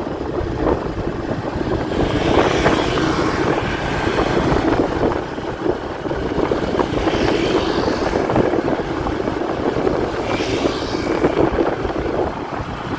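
Motorbike riding along a road: a steady engine and road hum with wind buffeting the microphone. A higher hiss swells up three times.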